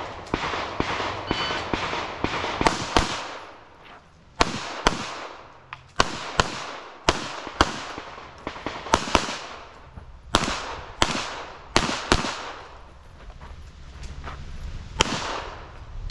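Pistol gunfire from other stages of a practical shooting match: a steady run of sharp cracks, often in quick pairs and short strings, each trailing off in echo.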